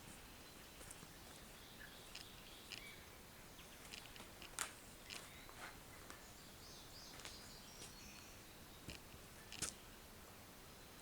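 Near silence with a dozen or so faint, scattered clicks and ticks; the two loudest come about halfway through and near the end.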